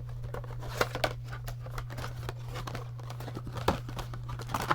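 Crinkling of foil Pokémon booster-pack wrappers being handled, a run of irregular crackles with a couple of sharper clicks near the end, over a steady low hum.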